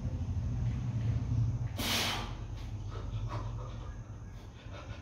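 A weightlifter's sharp, forceful exhale about two seconds in, as he drives up out of a heavy barbell back squat with 147.5 kg, followed by fainter breaths, over a steady low hum.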